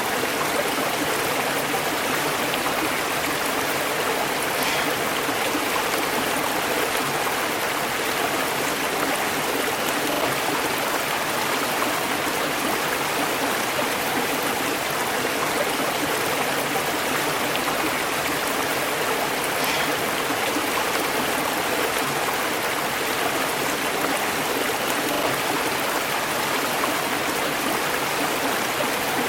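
River water flowing steadily over rocks, an even rushing and gurgling.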